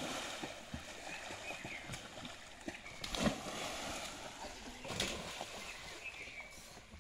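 Children jumping off a wooden boat into river water and splashing, with sudden splashes near the start, about three seconds in and again about five seconds in, over a steady wash of water.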